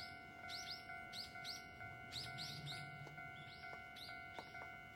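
Small birds chirping in quick runs of short, arched chirps, over quiet background music of steady held notes with a few short plucked notes near the end.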